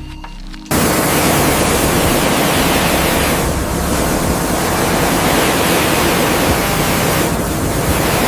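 A loud, steady rushing hiss with no clear pitch, starting abruptly under a second in.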